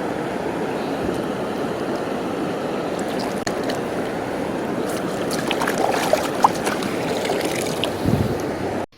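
Steady rush of a mountain stream flowing over rocks, with a few light clicks and knocks in its second half; it cuts off suddenly just before the end.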